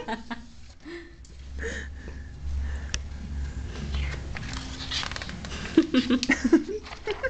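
Breathy, muffled voices and giggling sniffs, strongest near the end, with low rumbling handling noise on the camera microphone through the middle.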